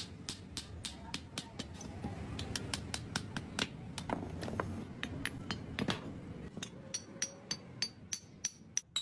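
Rapid, regular metallic tapping, about four sharp taps a second, over a low steady background. Toward the end the taps come more sparsely and ring like struck steel.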